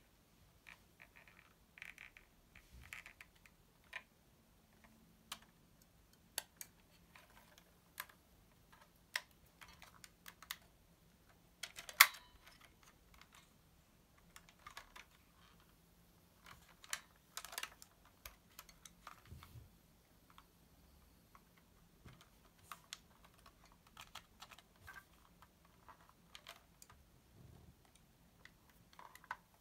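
Irregular small clicks and taps of a 1:18 diecast model car being handled, its hinged hood and doors opened and closed, with one sharper click about twelve seconds in.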